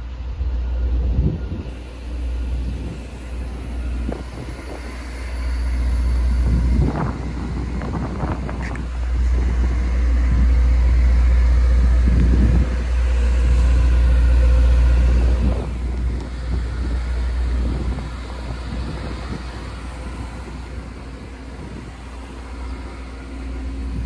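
Wind buffeting the microphone in gusts, loudest about halfway through, over a steady mechanical hum from the parked rail inspection car, which is left running on generator power.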